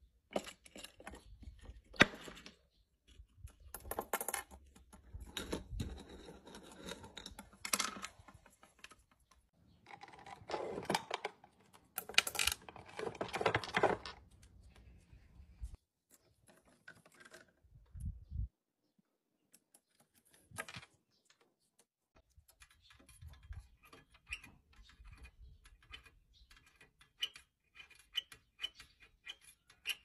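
Irregular small clicks, taps and rattles of a monk parakeet handling little toys and objects on a tabletop, such as coins, a wooden box and plastic pieces. There is a busier stretch of clattering in the middle and a couple of short near-silent gaps.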